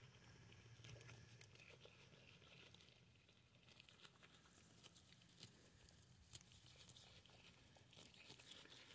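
Faint, irregular tearing and chewing as a goat crops and chews winter ryegrass, with scattered small crackles that grow thicker near the end.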